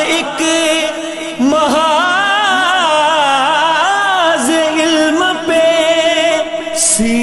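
A man singing an Urdu devotional tribute with long, wavering held notes over a steady background hum.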